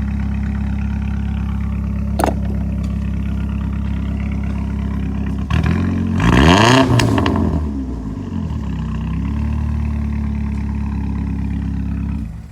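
Car engine idling through a freshly installed cold air intake, revved once about halfway through: the pitch rises and falls back over a couple of seconds with a loud rush of intake air at the peak, then it settles back to a steady idle.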